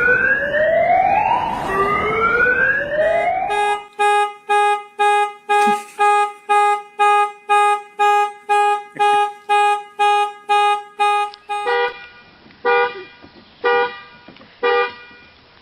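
Car alarm siren cycling through its tones: two long rising whoops, then rapid beeping about twice a second, then slower beeps about once a second from about twelve seconds in.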